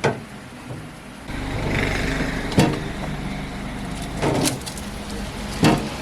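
A low, steady vehicle-like rumble that starts suddenly about a second in, with four sharp knocks, one at the start and then about every one and a half seconds.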